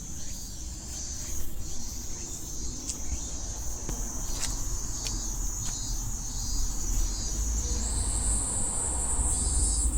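Insects shrilling steadily in a high, continuous chorus, with a second, higher-pitched insect joining about eight seconds in, over a low outdoor rumble and a few faint clicks.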